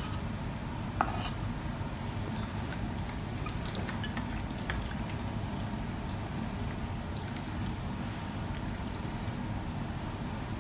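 Sauced spaghetti scraped from a pan into a bowl, with one sharp knock about a second in, then small clicks of chopsticks stirring and lifting the noodles. A steady low rumble sits underneath.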